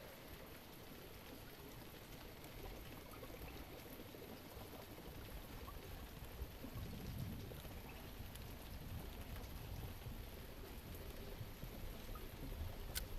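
Faint, steady wash of water noise, with scattered small ticks and one sharp click near the end.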